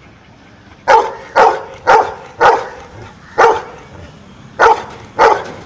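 A dog barking seven times in a row, short sharp barks spaced about half a second to a second apart, counting out its answer to "7 plus 1".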